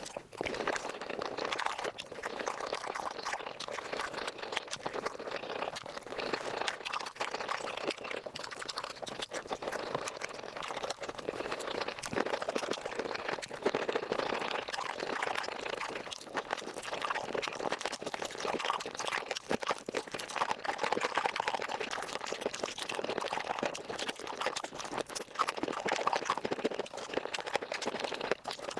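Close-miked eating of chicken feet, sped up about five times: rapid wet chewing, sucking and crunching of skin and cartilage run together into a dense, continuous crackle of tiny clicks.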